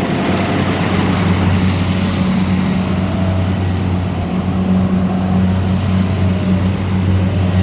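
Kubota DC-70 Plus rice combine harvester running steadily under load, a loud even engine drone with a low hum and a dense rushing noise of machinery over it.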